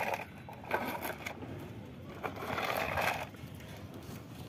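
Plastic toy dump truck rolled across rough concrete, its plastic wheels scraping and crunching over grit in two bursts, about a second in and again near three seconds.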